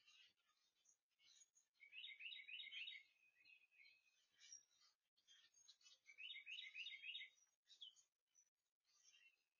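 A songbird singing faintly: two song phrases, each a quick run of repeated notes lasting about a second, the first about two seconds in and the second about six seconds in, with a few fainter calls between.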